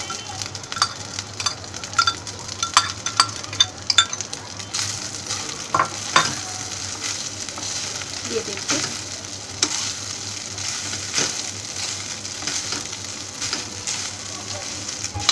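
Cooked rice being stirred into fried vegetables in a hot wok with a spatula: sharp knocks of the utensils on the pan for the first six seconds or so, then steady sizzling of frying under repeated stirring strokes.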